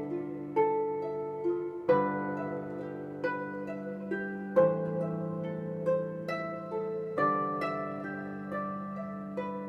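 Meditative music: plucked harp-like notes in a slow, gently rising and falling pattern over a sustained low drone.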